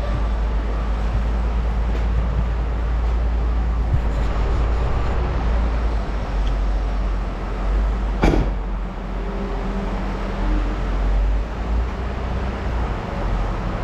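Truck driving: a steady low road rumble, with one sharp knock about eight seconds in.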